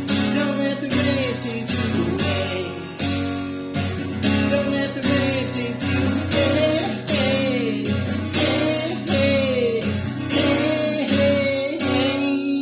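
Acoustic guitar strummed in a steady rhythm, about two strokes a second, with a voice singing a wordless melody over it; the level starts to drop near the end as the song winds down.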